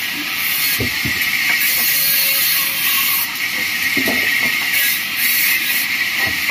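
Vertical bandsaw ripping wooden slabs: a steady, loud, high hiss of the blade in the wood, with a few dull knocks as the slabs are handled, about a second in, near the middle and at the end.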